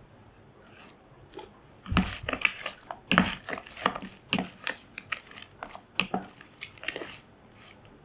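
A spoon stirring raw shell-on shrimp in a plastic bowl: a quick irregular run of wet clicks and scrapes from the shells and the spoon against the bowl, starting about two seconds in and stopping about a second before the end.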